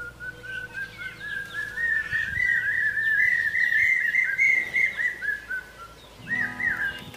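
A bird calling: a long run of short, clear whistled notes that climb steadily in pitch and grow louder, then fall back and fade near the end, with a brief different phrase of notes just after.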